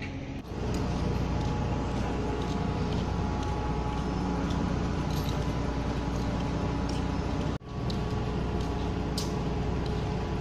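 Steady drone of heavy machinery with a low hum and faint scattered clicks; it drops out for an instant about three-quarters of the way through.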